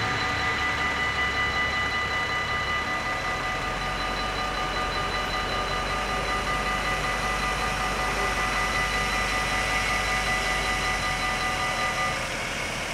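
Electronic warning bells of a Dutch automatic half-barrier crossing (AHOB) ringing steadily as the barriers rise after the train has gone, stopping abruptly about twelve seconds in once the barriers are fully up. A waiting van's engine idles underneath.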